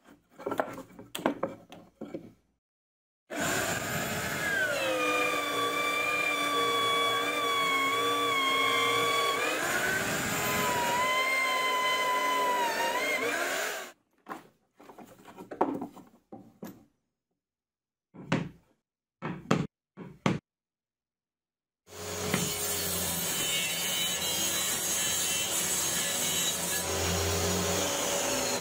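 Homemade drill press boring holes in plywood: its motor whines steadily, the pitch dipping and recovering as the bit bites, between rustles and knocks of wood shavings being brushed away. Near the end a homemade table saw runs with a low hum.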